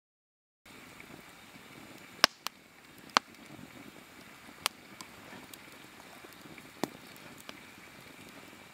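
Wood fire crackling: a soft steady hiss with sharp pops every second or so, the loudest about two and three seconds in. It starts about a second in, after a brief silence.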